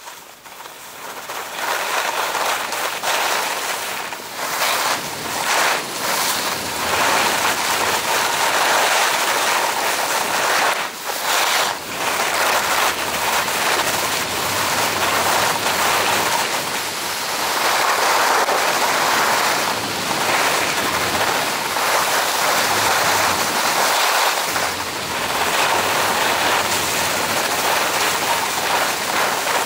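Rushing noise of a fast downhill ski run: wind buffeting the camera microphone and skis scraping and carving over packed snow, building up about a second in and then holding steady with brief dips.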